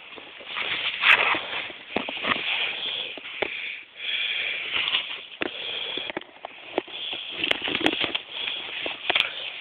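Handling noise from a handheld camera: fingers rubbing and knocking close to its microphone, with irregular rustling and scattered clicks.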